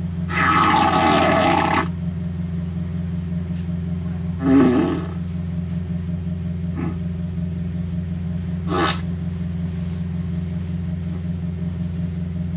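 Recorded fart sound effects blaring from a car stereo: a long, loud blast about a second in, then shorter ones around the middle and later, over a steady low hum.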